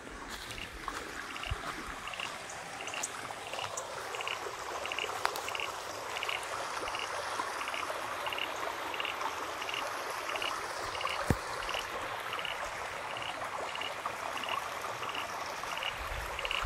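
Muddy floodwater running steadily through a brimming creek channel. A short high-pitched call repeats about twice a second over it, and there is a single sharp knock about eleven seconds in.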